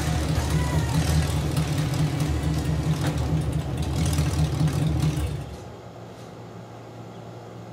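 LS1 V8 engine in a 1968 Pontiac Firebird running on its first start-up after the engine swap, a loud low rumble. About five seconds in the sound drops sharply to a much quieter steady low hum.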